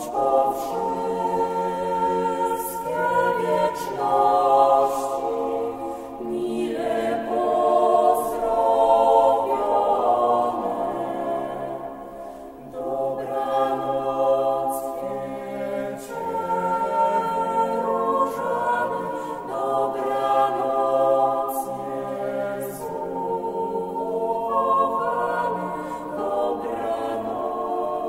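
Choir singing a slow hymn in long held phrases, with short breaks between phrases every few seconds.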